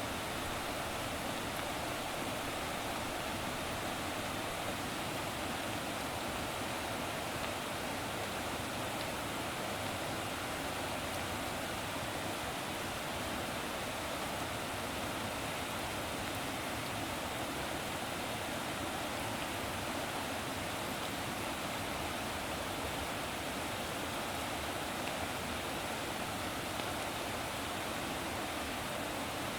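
A steady, unbroken rush of running water.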